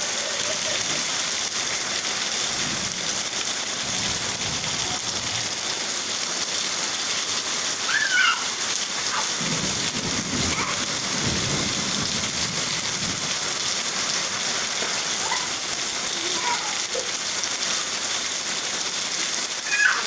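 Heavy rain falling steadily onto a flooded concrete yard, a constant hiss of drops on water and pavement. A low rumble swells around ten to twelve seconds in, and a short high call cuts through about eight seconds in.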